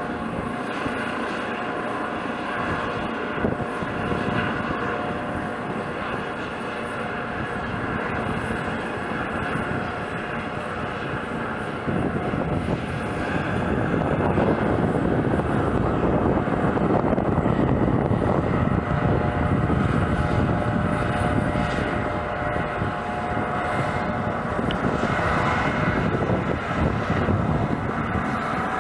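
Eurocopter EC155 B1 helicopter running on the ground, its twin turbine engines whining steadily with the main rotor and Fenestron tail fan turning. It becomes louder about twelve seconds in.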